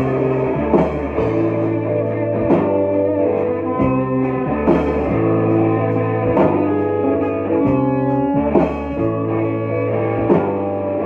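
Live rock band playing an instrumental passage: electric guitars, bass guitar and drum kit.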